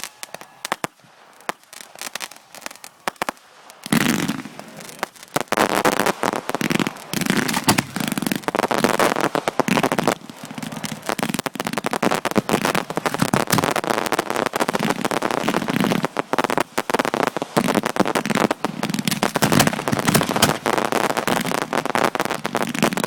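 Fireworks grand finale heard from close to the firing site: a few scattered sharp pops, then from about four seconds in a dense, continuous barrage of shots and bangs.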